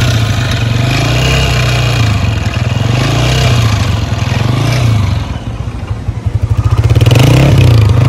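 Air-cooled single-cylinder motorcycle engine running with an abnormal mechanical noise, which the owner puts down to a failed connecting rod. Its revs drop to a slower pulsing beat around five to six seconds in, then it gets louder again near the end.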